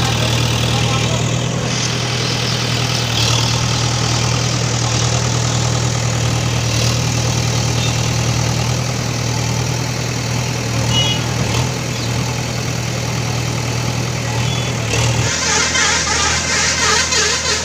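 A JCB's diesel engine running steadily under work with a constant low hum. About fifteen seconds in, the steady note drops away and a rougher, clattering noise follows.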